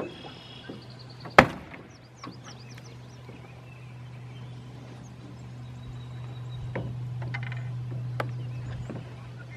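A single sharp knock about a second and a half in as the plastic hull of an RC fishing boat is put down on the water beside a small boat, followed by a few lighter knocks over a steady low hum.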